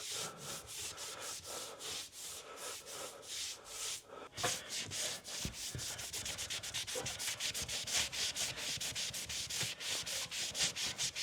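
Hand sanding a dried filler patch on drywall: quick back-and-forth rubbing strokes, picking up speed about four seconds in.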